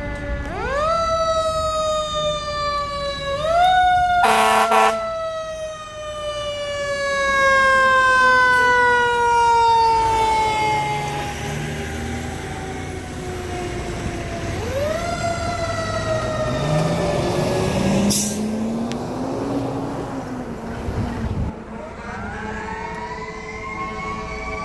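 Fire engine siren winding up quickly and then falling slowly in pitch, over and over, with a loud horn blast about four seconds in and a shorter one around eighteen seconds. Near the end the siren winds up again as the engine and medic unit drive away.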